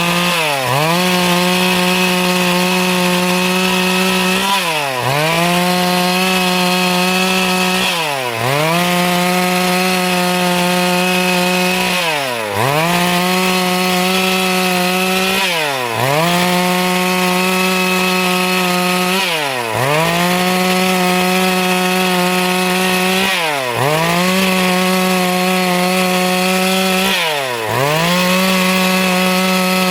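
Stihl MS 382 two-stroke chainsaw running at full throttle, cutting wood. About every four seconds its pitch drops briefly and climbs straight back.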